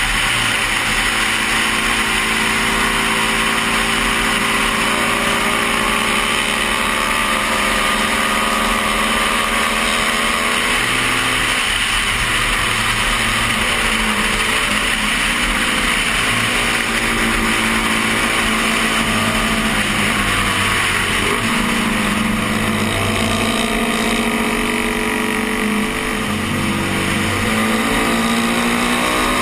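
A 1972 Honda CB350's air-cooled parallel-twin engine running hard under racing load, its note rising and falling a little, over steady wind rush on a helmet-mounted microphone. The engine is one that the rider says will not rev over about 8,500 rpm. Its level dips briefly near the end.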